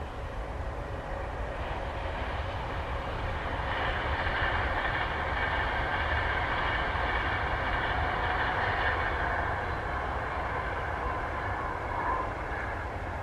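Airbus A380's four jet engines whining at taxi power as the aircraft rolls past, growing louder to a peak midway and then easing off, over a steady low rumble.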